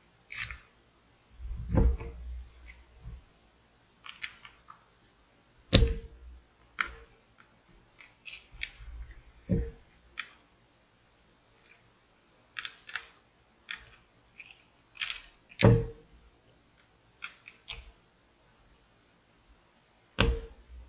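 Scattered clicks and taps of tools prying around the edge of a Samsung Galaxy Note 10+'s glued rear glass, with several heavier knocks on the work surface.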